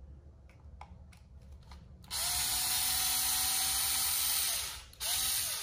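Small cordless electric hex driver with a 2.0 mm bit, running to back a screw out. It gives one steady run of about two and a half seconds that winds down, then a short second burst near the end.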